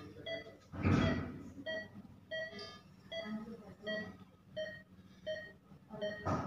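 Operating-theatre patient monitor beeping with each pulse, about three short pitched beeps every two seconds. A brief rustling noise comes about a second in and again near the end.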